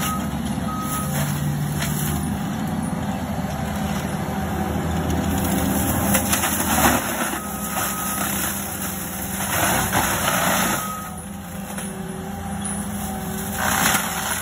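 ASV compact track loader running a forestry mulcher head under load: the diesel and mulcher drum run steadily, with louder grinding surges as the spinning head chews into brush and trees. A backup alarm beeps briefly twice at the start and again a few seconds before the middle.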